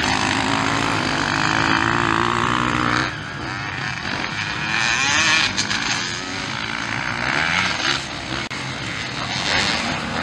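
Two-stroke Honda motocross bike engine revving up and down as it races over the dirt track, with pitch rising and falling as the throttle is worked. It is loudest in the first three seconds, and other dirt bikes are heard running on the course.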